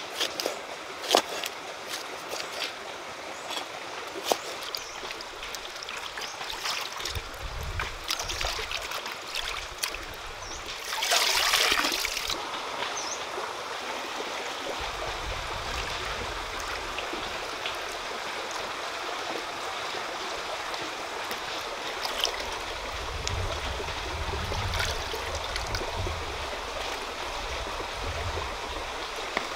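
Stream water running steadily over rocks. In the first few seconds a knife chops sharply on a wooden board, and about eleven seconds in there is a brief, louder splash of water.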